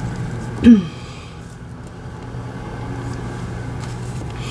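A steady low hum, with one brief pitched sound that falls in pitch less than a second in and is the loudest thing heard.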